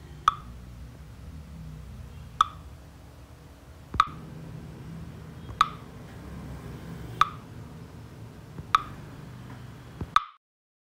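A short, sharp ping repeating evenly about every one and a half seconds, seven times, over a low steady hum.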